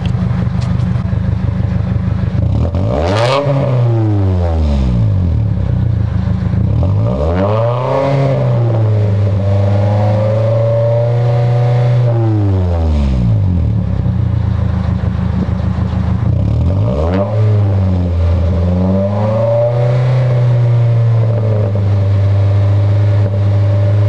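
Toyota Celica's four-cylinder engine, heard at the tailpipe of its catless exhaust, idling and revved three times: a short blip about three seconds in, then two longer revs, each held for a few seconds before dropping back to idle.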